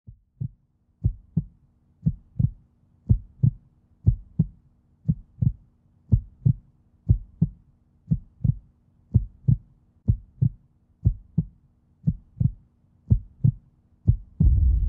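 Heartbeat sound effect: pairs of short, low thumps, about one pair a second, in a slow steady beat. In the last half-second a louder, steady low drone swells in.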